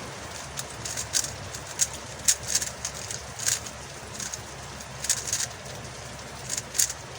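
MoYu Huameng YS3M MagLev 3x3 speedcube being turned fast during a timed solve: irregular bursts of quick plastic clicks and clacks.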